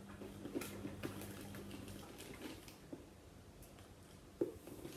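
Metal spoon scooping sultanas out of a plastic tub into a measuring cup: soft rustling of the dried fruit with scattered light taps of the spoon against tub and cup, the sharpest a little over four seconds in.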